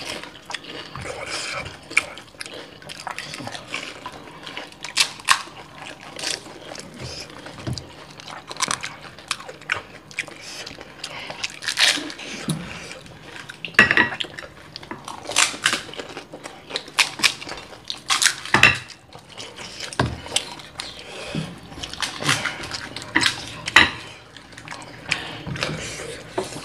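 Spoons and fingers clinking against ceramic bowls as fuchka (pani puri) are dipped and filled with sour water: irregular sharp clicks with small liquid splashes and dripping.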